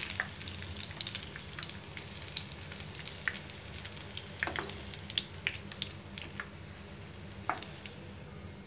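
Vegetable pakoras frying in a pan of hot oil: a soft sizzle with scattered crackles and pops, thinning out toward the end.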